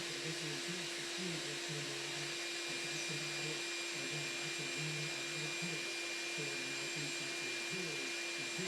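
Steady hiss with a constant electrical-sounding hum, unchanging throughout, and faint low voices coming and going underneath.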